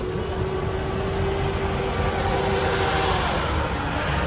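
A vehicle's road and engine noise heard from inside the cabin while driving: a steady rumble and hiss. A steady tone is held through the first three seconds and then fades.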